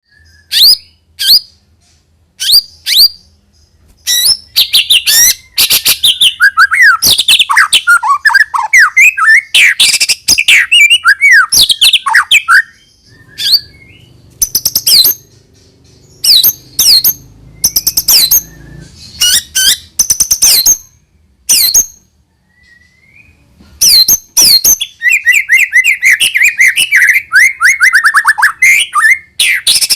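White-rumped shama singing a loud, varied song of sharp, piercing whistled notes in rapid series, broken by short pauses, with fast twittering runs in the middle and near the end.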